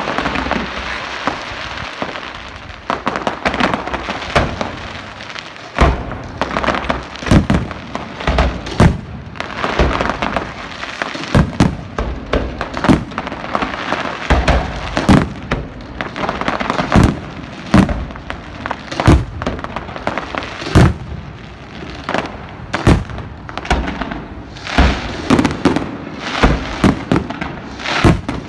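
Fireworks display: a rapid, irregular string of loud bangs and booms, several a second at times, over the hiss and crackle of bursting shells.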